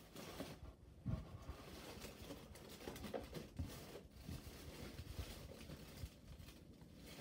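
Rummaging through craft supplies: irregular rustling and small knocks as things are handled and moved, with one louder thump about a second in.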